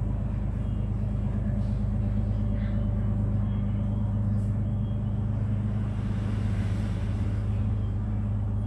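A steady low hum with a background rumble, even and unchanging throughout.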